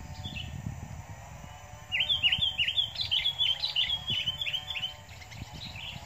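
Sooty-headed bulbul calling: a fast run of short, sharp chirps, about five a second, starting about two seconds in and lasting some three seconds, after a single faint chirp near the start.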